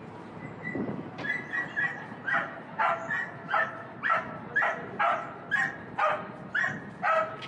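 A small dog barking over and over, short high yaps about two a second, starting about a second in.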